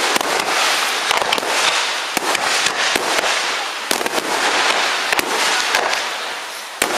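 Aerial fireworks display: a continuous dense crackling of the bursting shells, punctuated by many sharp bangs, with one of the sharpest near the end.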